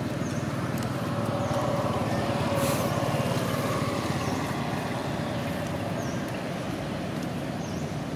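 Steady running of a motor vehicle engine, a little louder about two to three seconds in.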